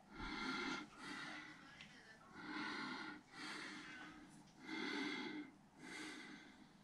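A person breathing in and out through the nose close to the microphone, a steady rhythm of about three breaths, each a louder swell followed by a softer one.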